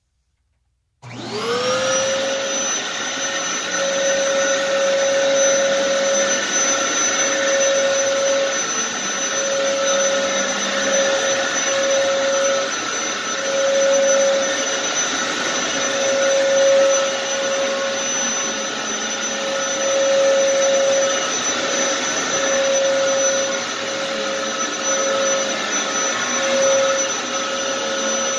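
Dyson DC07 All Floors upright vacuum cleaner switched on about a second in, its motor spinning up to a steady high whine over a rush of air, running while it is pushed over carpet.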